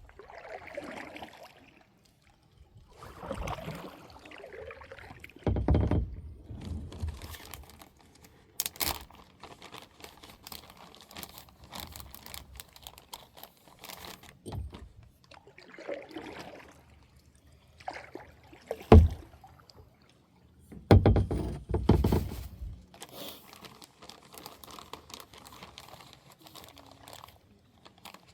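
Water sloshing and splashing in irregular bursts, with a sharp knock about two-thirds of the way through.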